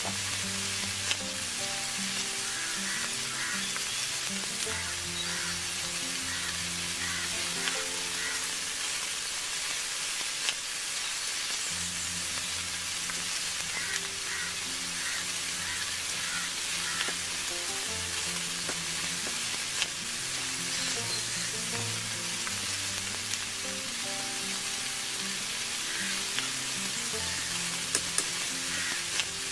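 Fish-roe cutlets deep-frying in hot oil in a wok, a steady sizzle, with a few light clicks. Background music plays underneath.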